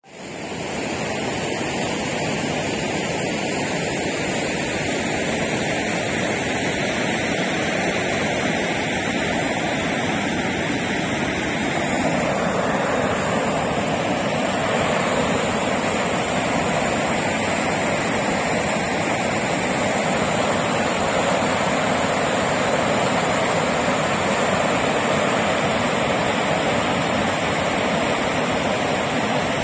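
Shallow river rushing over rocks in small rapids, a steady roar of moving water that grows fuller about twelve seconds in.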